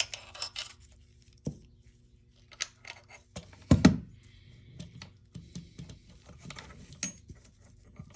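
Small hard parts of an airsoft rifle being handled during disassembly: scattered light clicks and clacks, with one heavier knock about four seconds in.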